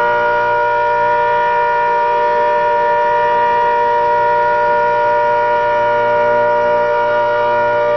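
ACA Hurricane 130 outdoor warning siren sounding a steady alert: a loud two-pitched chord held without rising or falling.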